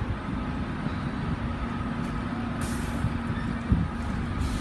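London buses idling with a steady low engine hum, with two short bursts of pneumatic air hiss, about two-thirds of the way through and again at the end, and a single knock in between.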